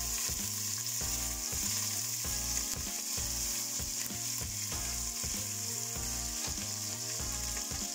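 Hot oil sizzling in a stainless steel pan as a tempering of mustard seeds, curry leaves and ajma (carom) leaves is stirred with a wooden spatula, with a steady hiss and scattered small crackles.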